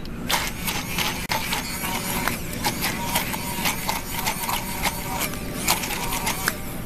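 Immersion blender running in a tall beaker, blending black olives with olive oil, with frequent irregular clicks and knocks.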